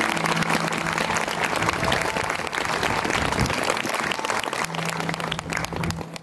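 Crowd of guests applauding steadily, a dense patter of many hands clapping as the bride and groom bow to them.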